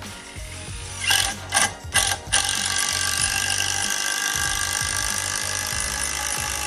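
A motor-driven tool gives a few short bursts, then runs steadily from about two and a half seconds in.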